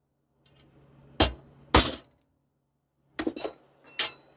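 Two sharp hammer blows on a steel punch held on the rivets of a chainsaw bar's replacement sprocket nose tip, peening the rivets over to lock the tip in. Lighter metallic clinks follow near the end.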